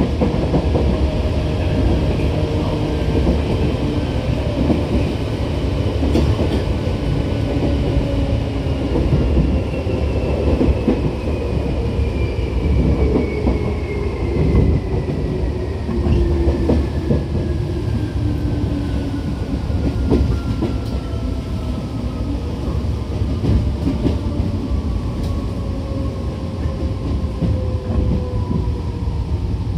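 Tokyu 8500 series electric train running: a steady rumble with wheel clicks over rail joints, and a traction-motor whine that falls slowly and steadily in pitch as the train slows.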